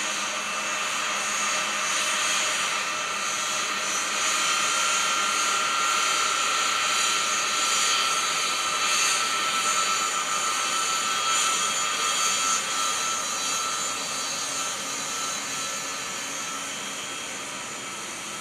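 Boeing C-17 Globemaster III's four Pratt & Whitney F117 turbofan engines running at taxi power as the airlifter rolls past. It is a steady jet whine with high tones over a rushing noise, growing fainter over the last few seconds.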